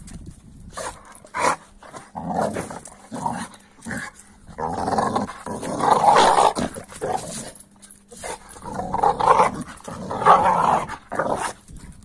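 An American Staffordshire terrier growls and grumbles in play while wrestling, in repeated rough bursts, loudest around the middle and again near the end.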